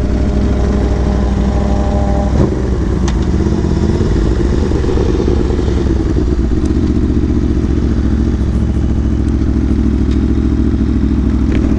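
Aprilia sport motorcycle with an aftermarket exhaust, its engine running steadily at moderate road speed, heard from the bike itself.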